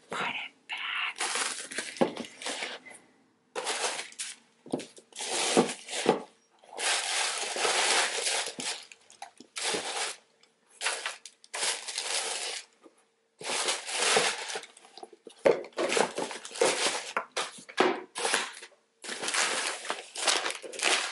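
Packing paper crinkling and rustling in irregular bursts as it is handled and stuffed into sneakers, with a cardboard shoe box being handled near the end.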